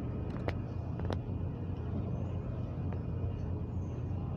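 Steady low rumble of train station ambience, with two sharp clicks in the first second or so.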